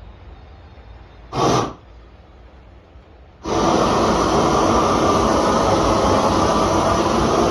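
A brief hiss about a second and a half in, then a large torch flame starts abruptly at about three and a half seconds and keeps running loud and steady as it scorches the carved wood.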